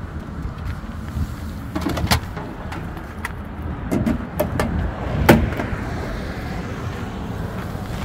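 Steady low rumble of wind buffeting the microphone, with a few sharp clicks; the loudest comes about five seconds in.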